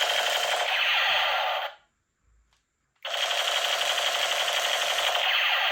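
Toy gun firing on full auto: a dense, rapid mechanical rattle in two long bursts, with a sudden stop of about a second between them.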